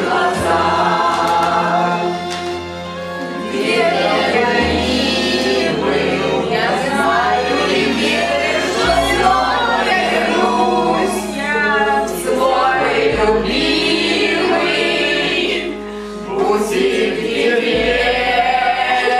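A group of voices singing together in chorus over a musical accompaniment, whose bass moves to a new held note every four seconds or so.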